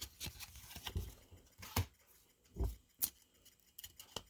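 Trading cards being handled and flipped through at a table: scattered sharp clicks of card stock with a few soft thumps.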